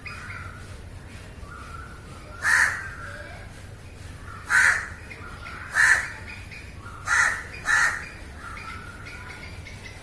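Crows cawing: five loud, harsh caws spaced a second or two apart, the last two in quick succession, with fainter answering caws from other crows in between. A low steady rumble sits under them.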